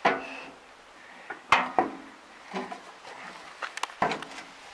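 Scattered knocks and clanks of steel as a Claas Rolant 46 baler's press roller is pushed and shifted into its mounting: a knock at the start, a sharp clank about a second and a half in, and a quick cluster of clicks and a knock near the end.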